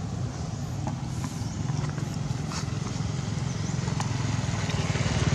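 A motor engine running steadily, with an even low pulsing hum that grows louder toward the end, and a few faint clicks.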